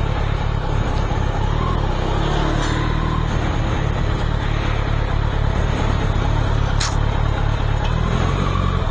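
Motorbike engine running as it rides slowly along the street, with a steady low rumble and one sharp click about seven seconds in.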